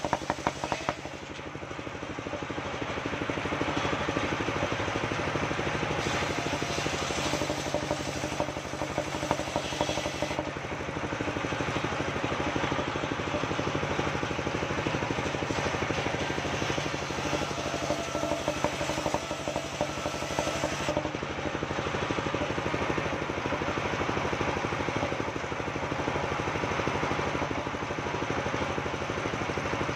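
Engine-driven mobile circular saw running steadily while waru-wood planks are ripped lengthwise through the blade, the cutting adding a harsh hiss over the engine's steady drone that grows and eases in long passes.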